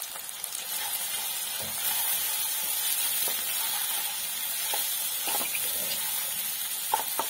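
Onions, tomatoes and freshly added ginger-garlic paste sizzling in sesame oil in a kadai, with a spoon scraping the pan now and then as it is stirred. The sizzle grows louder about two seconds in. This is the stage where the paste is fried until its raw smell goes.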